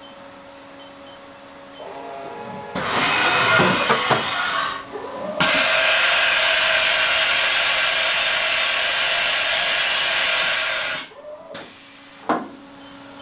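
2007 Haas VF-5/50 CNC vertical machining center running under power. A couple of seconds in, machine noise swells with whines that rise and fall. About five seconds in a whine rises and then holds steady under a loud whirring hiss, which stops suddenly about eleven seconds in. A single short clunk follows.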